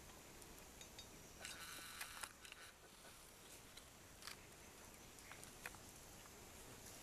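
Sloth bear feeding on termites at the ground: one short breathy noise lasting about a second, a second and a half in, over a faint quiet background with a few scattered small clicks.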